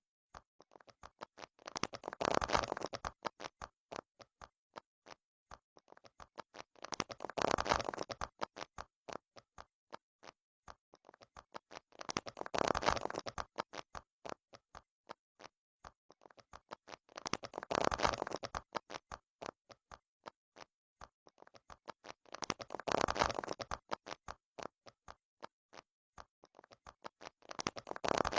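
Silicone pop-it fidget toy bubbles being pressed: a steady run of small pops, a few a second, with a quick flurry of pops about every five seconds.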